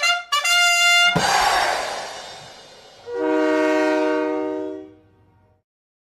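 Ice hockey goal music. A quick run of trumpet notes ends on a held note, then a crash rings away, and about three seconds in a held brass chord sounds and fades out.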